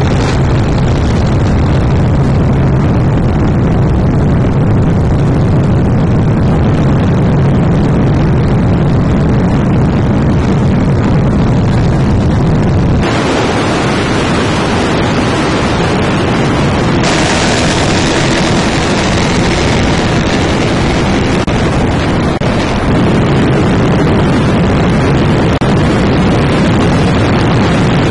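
Steady, loud engine and wind noise with no speech. Its tone changes abruptly about 13 seconds in and again, brighter, about 17 seconds in.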